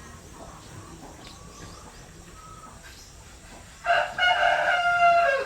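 A rooster crowing once near the end: a short first note, then a long held call that drops in pitch as it fades. Faint bird calls sound in the background before it.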